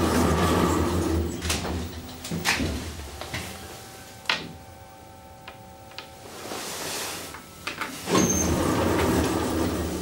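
Elevator car doors sliding with a low mechanical rumble, broken by several sharp clicks. A thin steady tone sounds for a couple of seconds around the middle, and the rumble starts again loudly about eight seconds in.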